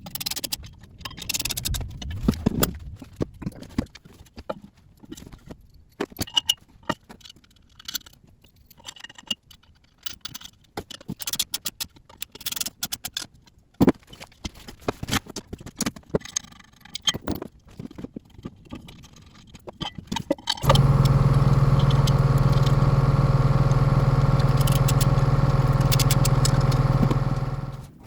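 Irregular metal clinks, clanks and scrapes from assembling a steel lathe stand: bolts, wrench and heavy steel stand parts handled and tightened. About two-thirds of the way in, a loud steady hum with a fixed pitch starts, holds for about seven seconds, then stops near the end.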